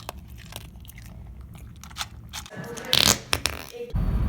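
A Chorkie's long, untrimmed claws clicking on a hard floor in scattered, irregular ticks. About three seconds in there is a louder scuffling burst, and near the end a loud low rumble starts.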